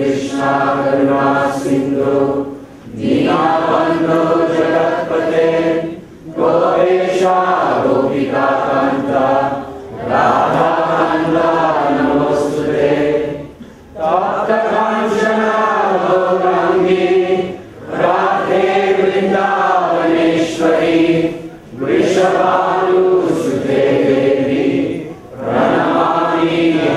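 A man chanting devotional prayers in a sung melody into a microphone, in phrases of a few seconds each with short pauses for breath between them.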